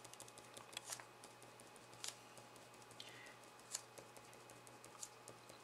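Faint, irregular clicks and light scratches of a pen tip on paper as short marks are drawn one after another, a few louder taps among them, over a steady low hum.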